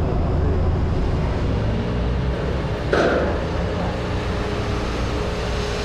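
City street traffic: a steady low rumble of passing vehicles, with one short sharp knock about three seconds in.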